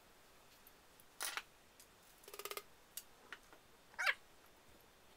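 Faint handling sounds of brass trombone slide tubes being fitted together: a short scrape about a second in, a brief rasp midway, and a short wavering squeak about four seconds in.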